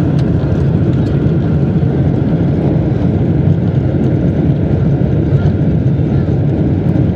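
Boeing 747-200 airliner's jet engines running at takeoff or climb power, heard as a steady low rumble of engine and airflow noise.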